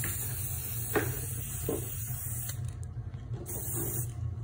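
Aerosol spray paint can hissing as it sprays: one long spray of about two and a half seconds, then a shorter spray about a second later.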